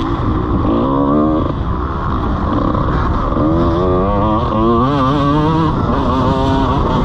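125cc two-stroke motocross bike engine revving hard under the rider, its pitch climbing and dropping again and again as he works the throttle and gears, over a rough rumble of wind and track noise.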